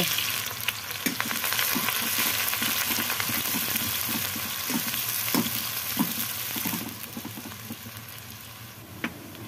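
Sliced onions sizzling in hot oil in a kadai, with a metal spatula scraping and tapping against the pan as they are stirred. The sizzle grows quieter for the last couple of seconds.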